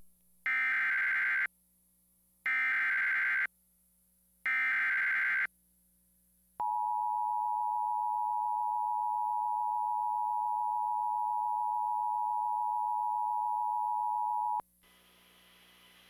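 Emergency Alert System broadcast signal: three one-second bursts of warbling SAME header data, about a second apart, followed by the two-tone EAS attention signal (853 and 960 Hz) held steady for about eight seconds and cutting off suddenly. It announces a National Weather Service severe thunderstorm warning.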